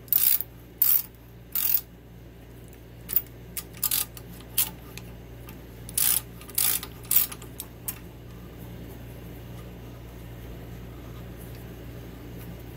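Hand tap in a T-handle tap wrench cutting threads in a steel bar: short, sharp metallic ticks and scrapes, irregularly spaced, as the tap is turned in a little and backed out to break the chip. The ticks stop after about eight seconds, leaving a steady low hum.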